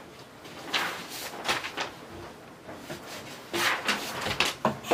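Sheets of drawing paper rustling and sliding over one another, in two spells, with a few sharp light knocks near the end.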